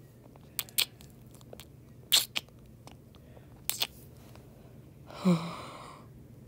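Close-miked kissing sounds: three pairs of quick lip smacks about a second and a half apart, then a short breathy vocal sound about five seconds in.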